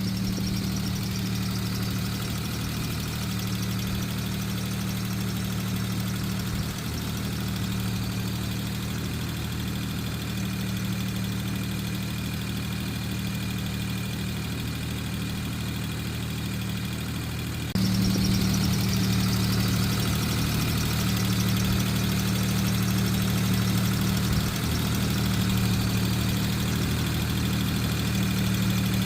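Suzuki Jimny engine idling steadily. About 18 seconds in the sound steps up louder, with a brighter high hiss joining the engine note.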